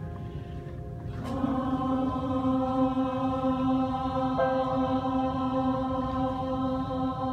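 Mixed choir of men's and women's voices singing a hymn: after a quieter first second, a new full chord enters and is held long and steady.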